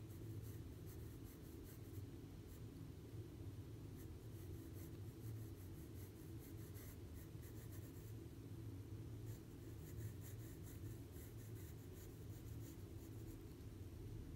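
Graphite pencil scratching on sketchbook paper in many short, quick shading strokes, faint, over a low steady hum.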